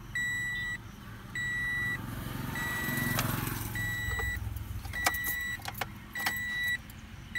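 Toyota Vios's dashboard warning chime beeping steadily, six even beeps about a second apart. A low rumble swells in the middle, and a few sharp clicks come in the second half.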